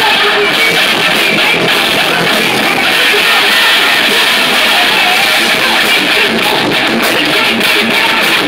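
Live band playing loud and steady: electric guitars over a drum kit.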